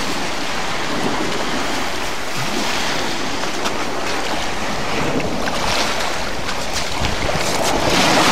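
Small waves breaking and washing over a stony shoreline close to the microphone, with a louder surge of surf near the end.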